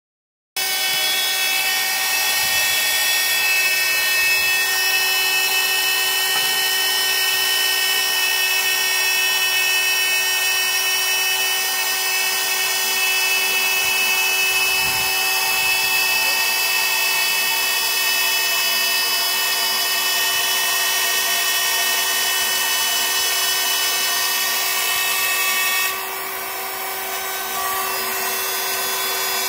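Kingmac CNC milling machine's spindle cutting a lock cut-out into an aluminium door profile: a steady high whine made of many tones over a hiss of cutting. It starts under a second in and turns somewhat quieter and duller near the end.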